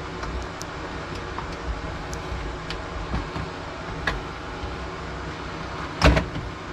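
Small clicks and scrapes of a utility knife trimming the corners of a plastic under-sink cabinet mat, over a steady low rumble, with a louder knock about six seconds in.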